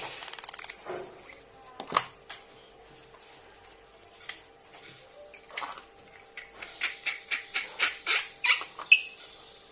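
Lightsaber hilt parts being handled and fitted together: scattered clicks and knocks, a sharp one about two seconds in, then a run of quick clicks near the end while the hilt sections are turned in the hands.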